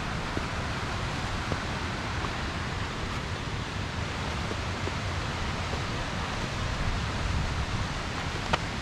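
Steady rushing noise of a mountain creek cascading down the valley, with wind buffeting the microphone and fluttering the low end. A single sharp tap near the end.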